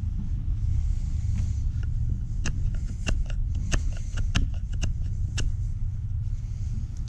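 A steady low rumble, with an irregular run of about a dozen sharp clacks in the middle.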